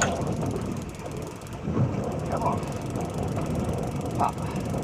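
Fishing reel's drag clicking in a fast, steady ratchet as line is pulled off: a hooked king mackerel running. Heard over the boat's low steady rumble.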